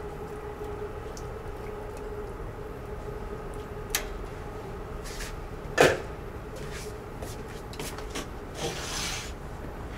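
Kitchen handling sounds: a light click about four seconds in and one sharp knock near six seconds, over a steady low hum, with a brief hiss near the end.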